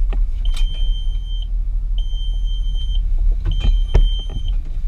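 Three long, even electronic beeps of about a second each, over the low steady rumble of the parked Audi S4 idling; a sharp knock about four seconds in.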